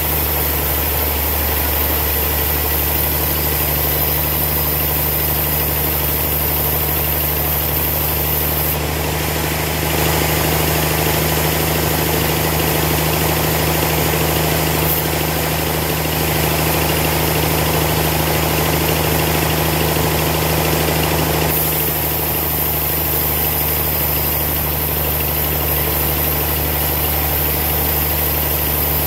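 Horizontal band sawmill running steadily, its blade cutting lengthwise through a thick suar log: a steady motor hum under the hiss of the blade in the wood. The cutting noise grows a little louder and hissier from about nine seconds to about twenty-one seconds in.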